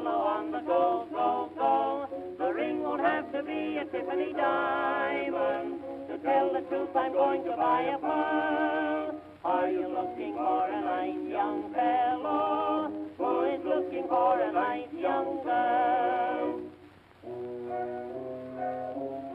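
Early acoustic-era phonograph recording of a popular song: voices singing with vibrato over a small orchestra, the sound thin with no treble above the voices. About seventeen seconds in it dips briefly, then the band plays on more quietly.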